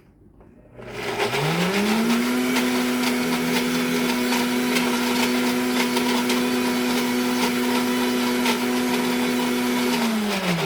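Breville Bluicer blender motor on its smoothie setting: it spins up about a second in, runs at a steady high speed churning a thick tomato-and-onion mixture for barbecue sauce, then winds down near the end.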